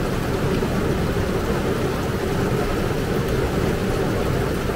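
Heavy downpour, a steady dense hiss of rain, heard from inside a parked car.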